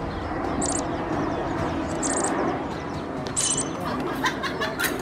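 A small bird chirping a short, high, stuttering call about every one and a half seconds, over a steady murmur of background noise; a run of sharp clicks joins in during the second half.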